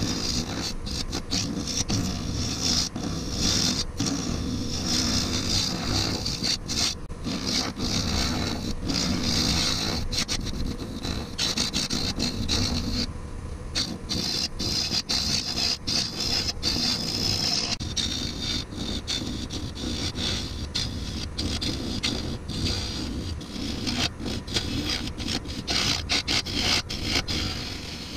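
Lathe gouge cutting a spinning cast-resin vessel, a steady scraping as the tool peels off ribbon shavings, with the lathe running underneath. The cut eases off briefly about halfway through.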